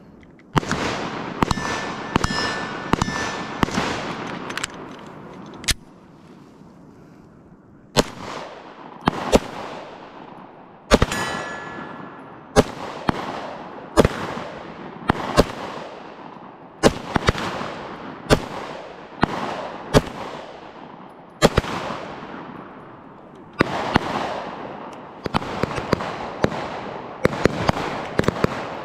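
Ruger Security-9 9 mm pistol firing a long string of single shots at an uneven pace of roughly one a second. Each sharp report has an echo trailing off behind it. There is a pause of about two seconds in the firing about six seconds in.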